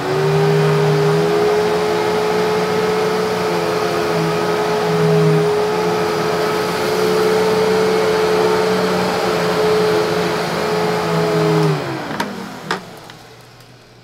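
Hoover WindTunnel Bagless upright vacuum's 12-amp motor running steadily at a fixed whine while it is pushed over carpet picking up sand, cereal and hair. About twelve seconds in it is switched off and the whine falls as the motor spins down, followed by a couple of clicks.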